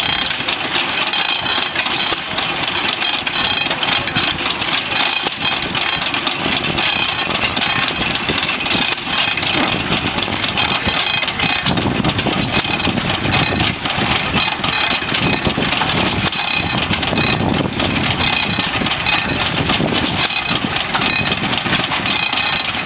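Economy hit-and-miss gas engine running a pump jack, its flywheels and valve gear clattering steadily, with low surges coming irregularly as the governor lets it fire only now and then. Water from the pump spout splashes into a metal bucket.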